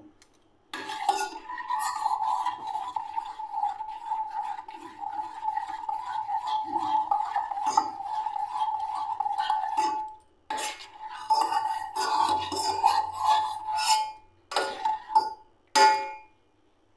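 A spoon stirring milk in a small stainless steel saucepan, scraping and clinking against the pan so that it rings with a steady tone. The stirring pauses briefly about ten seconds in, resumes, and ends with a few separate taps.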